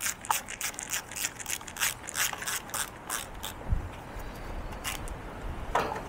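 Screwdriver undoing the Torx screws on a strimmer's plastic air-filter cover: a run of quick clicks for about three seconds, then a few single knocks.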